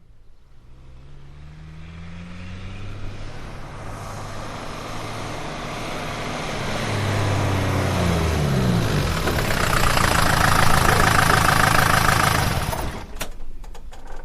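Jeep engine approaching, growing steadily louder, its pitch dropping as it slows. It stops, and the engine cuts out about 13 seconds in, followed by a few sharp clicks.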